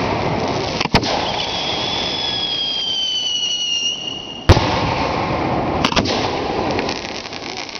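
Aerial fireworks shells bursting: sharp bangs about a second in, at four and a half seconds (the loudest) and near six seconds, over a steady crackling hiss. Between the first two bangs a whistle sounds and falls slightly in pitch, and a fast crackle follows near the end.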